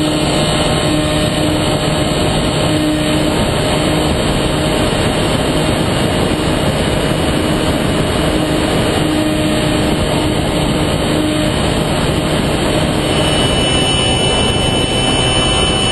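Steady wind rush over the onboard camera of a small electric FPV plane in flight, mixed with the constant hum of its motor and propeller.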